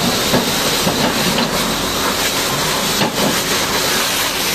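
High-pressure water jet spraying hard against heavy machinery, a loud steady hiss and spatter, with a low steady hum underneath.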